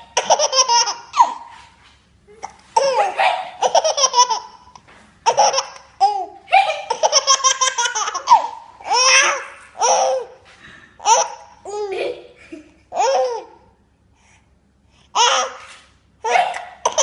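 High-pitched giggling in repeated bursts of quick laughter pulses, each burst up to about two seconds long, with a longer pause about two-thirds of the way through.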